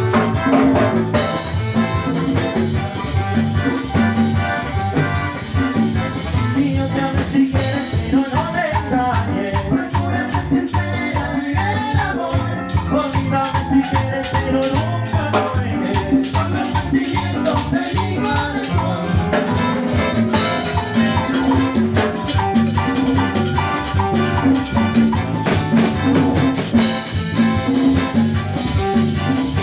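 A live Latin dance band playing: steady percussion and a bass line under a wavering melody that is most prominent through the middle.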